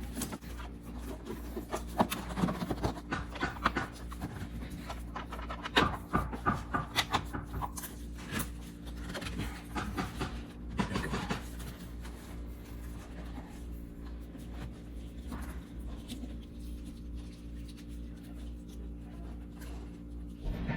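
Clicks, knocks and rubbing from parts and tools being handled while intake components are refitted on a car engine. They are thick for the first dozen seconds and then thin out, over a steady low hum.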